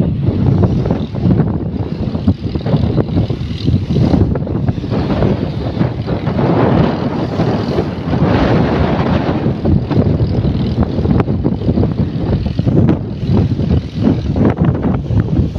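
Strong sea wind buffeting the microphone in a loud, uneven rumble, over the wash of waves breaking on the shore. The noise swells louder and brighter for a couple of seconds in the middle.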